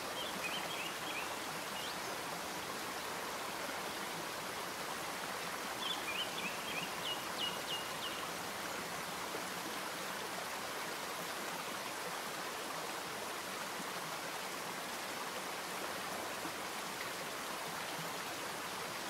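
A steady, even hiss, with a few faint high chirps or clicks just after the start and again about six to eight seconds in.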